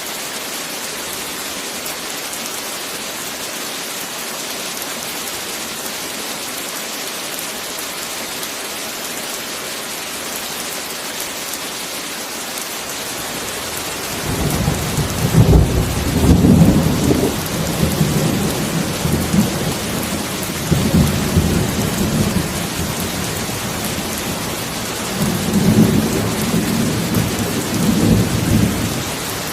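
Heavy rain falling in a steady hiss. About halfway through, thunder rumbles in and goes on in several swells, loudest soon after it starts, fading near the end.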